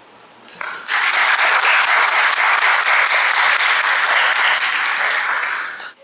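Audience applauding, building up within the first second and stopping abruptly near the end.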